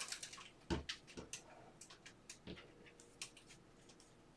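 Faint clicks and taps of a stack of trading cards being handled and flipped through by hand, with soft knocks about a second in and again about two and a half seconds in.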